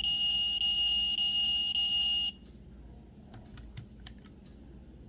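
Electronic sound effect from the built-in speaker of a 1:32 diecast Aston Martin Vantage GTE model, set off by opening its door: a steady, high-pitched alarm-like tone that cuts off suddenly a little over two seconds in. A few faint clicks follow.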